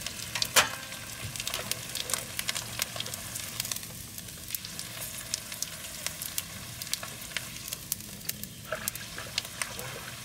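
Dried snakehead fish frying in hot oil in a small wok: a steady sizzle with many sharp crackles and pops throughout.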